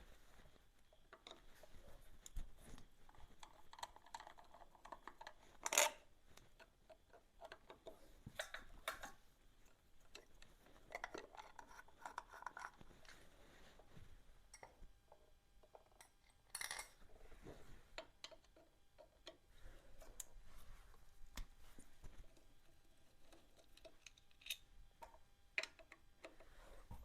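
Faint, scattered light clicks and clinks of small hard objects being handled, with two sharper clicks, about six seconds in and again about seventeen seconds in.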